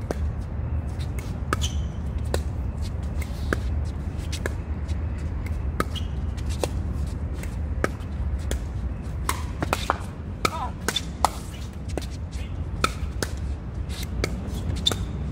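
Pickleball paddles striking a plastic pickleball in a doubles rally at the net: sharp pops one after another, coming faster in the second half, over a steady low rumble.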